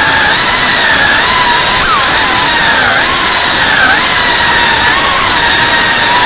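Tiny-whoop FPV drone's motors and propellers whining loudly over a rushing noise, the pitch dipping and recovering several times as the throttle changes.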